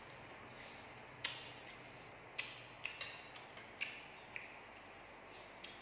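Eating sounds: a string of about eight sharp, irregular clicks and crunches as raw napa cabbage leaves wrapped around krill paste are bitten and chewed.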